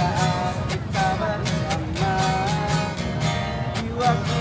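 A song: a voice singing a melody over strummed acoustic guitar.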